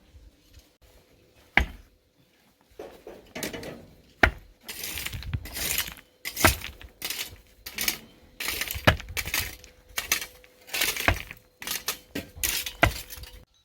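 Hand tools working rock and gravel: sharp metallic strikes about every two seconds, with scraping and crunching between them.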